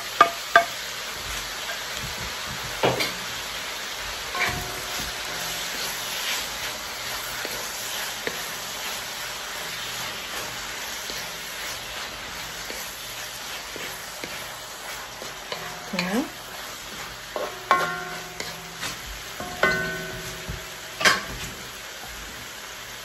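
Vegetables sizzling in a hot cast-iron wok as bok choy leaves go in and are stirred with a wooden spatula. Now and then the spatula knocks sharply against the wok.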